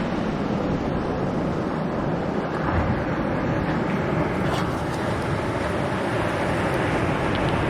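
Steady rush of sea surf washing on the shore, with wind buffeting the microphone.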